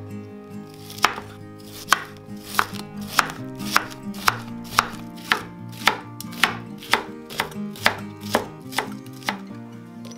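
Chef's knife slicing spring onions into rings on a wooden cutting board: a steady run of crisp chops, about two a second, starting about a second in and stopping near the end.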